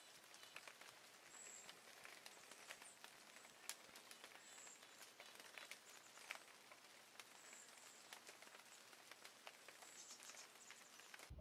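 Near silence: a faint crackly background hiss with scattered soft clicks and a short high chirp about every three seconds.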